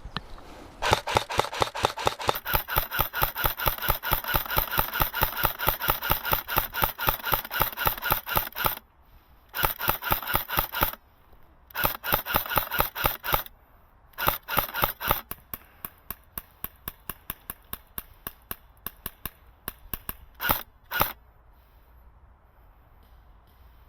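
Airsoft electric rifle firing full-auto: one long burst of rapid, even clicks lasting about eight seconds, then several shorter bursts with pauses, and a few single shots near the end.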